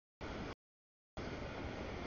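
Freight train rolling past, a steady rumble of cars that keeps cutting out to dead silence: one short piece of about a third of a second, then sound again from just past the middle on.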